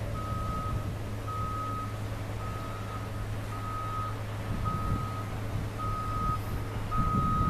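A vehicle's reversing alarm beeping about once a second, each beep a single high tone about half a second long, over a steady low hum.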